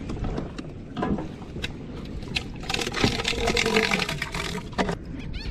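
Water splashing against the hull and knocks and clicks of gear being handled aboard a plastic fishing kayak, busiest about halfway through.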